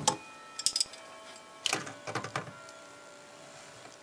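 A wrench clicking and scraping on the chrome slip nut of a sink trap as it is tightened: short metallic clicks at the start, just under a second in, and a longer run around two seconds in.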